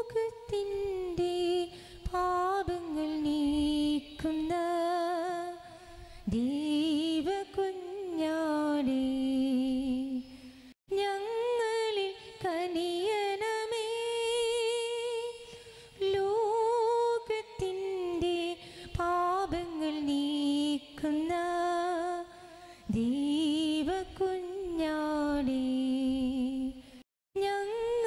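A woman singing a slow church hymn solo, one voice holding long notes with vibrato. The sound drops out completely for a moment twice, about 11 seconds and 27 seconds in.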